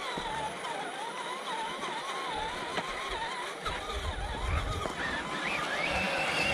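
Electric motor and gearbox of a 1/10-scale radio-controlled trail truck whining, the pitch wavering up and down with the throttle, then climbing and holding high near the end. A low rumble joins from about halfway.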